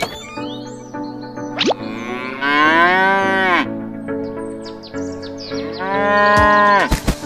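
A cow mooing twice, each call about a second long and falling in pitch at its end, over background music. A few short knocks come near the end.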